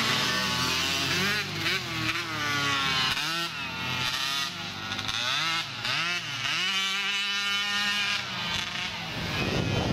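Small youth motocross bikes racing, several engines revving up and dropping back again and again as riders work the throttle and shift gears.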